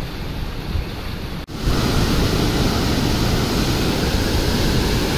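River in flood after heavy rain, its fast muddy water rushing through rapids in a steady noise of whitewater. After a brief break about a second and a half in, it comes back louder.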